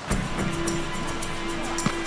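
Background music: a held note over light percussion ticking at a regular beat.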